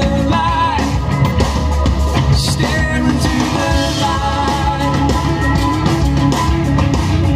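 A rock song with a singer, playing on the Kenwood DNN991HD car stereo.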